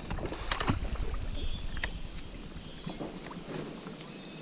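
Kayak being worked through marsh reeds and shallow water: reeds brushing and scraping along the hull, with a few sharp knocks in the first couple of seconds.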